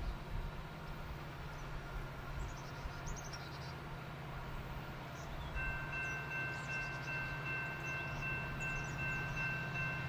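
Distant Norfolk Southern diesel freight locomotives working under heavy load up a grade, heard as a steady low rumble. About halfway through, a chord of steady high-pitched ringing tones sets in and holds. Small birds chirp now and then.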